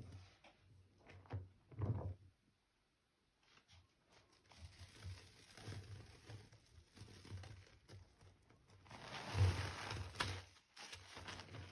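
Gloved hand squeezing and kneading a wet lump of recycled powder in sudsy sink water: soft squelches and sloshing, with a louder, longer stretch of wet squishing about nine seconds in.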